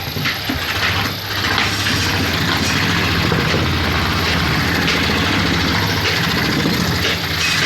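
Steady low hum of a running motor, with a few light clicks over it.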